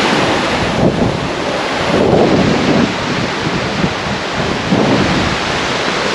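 Loud rushing noise with gusting low rumbles, typical of wind buffeting the microphone in stormy weather.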